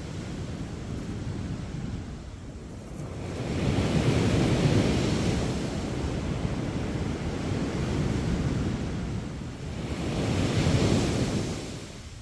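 Sea waves breaking on the beach: a steady rush of surf that swells twice, once about four seconds in and again about ten seconds in, easing off between them.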